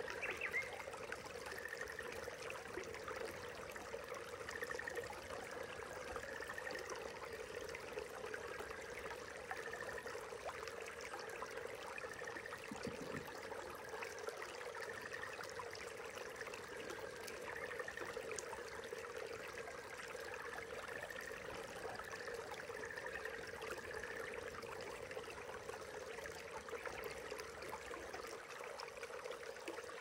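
Small brook babbling and trickling steadily.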